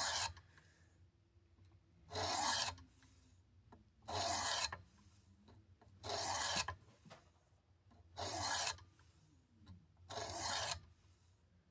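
400-grit sharpening stone on a Work Sharp Precision sharpener drawn along a steel knife blade from base to tip: five evenly paced rasping strokes, about one every two seconds, each lasting about half a second.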